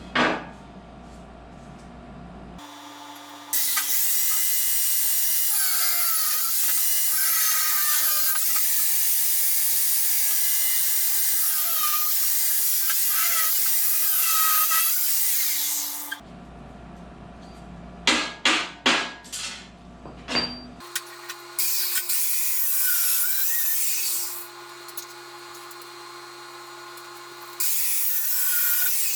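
Handheld power tool grinding on steel in three long runs, its motor humming steadily under a loud, hissing grind with wavering whines. Between runs there is a quick series of sharp knocks.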